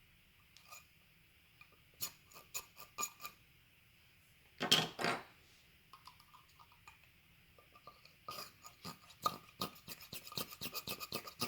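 Gel blaster gearbox parts being handled by hand: scattered small clicks and taps, a brief scraping rub about halfway, then a quick run of rapid clicks near the end.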